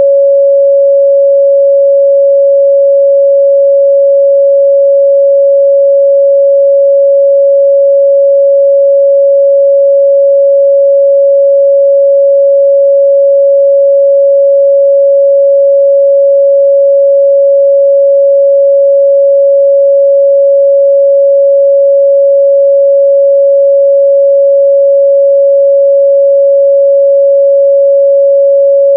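A steady, loud 557 Hz sine-wave test tone, one pure pitch held without change.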